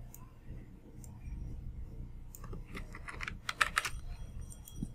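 Typing on a computer keyboard: a few scattered key clicks, then a quick run of keystrokes about halfway through, over a steady low hum.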